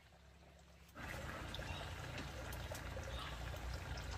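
Water boiling hard in a pot, a steady bubbling and churning that comes in suddenly about a second in.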